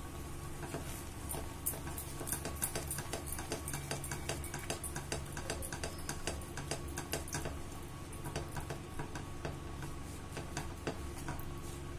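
Silicone spatula stirring thick almond paste in a non-stick pan, giving many irregular sharp clicks and scrapes against the pan, with a steady low hum beneath.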